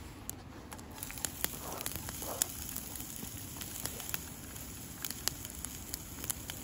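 Small wood campfire crackling, with scattered sharp pops. Chopped vegetables are tipped from a cutting board into an oiled steel camp pan early on.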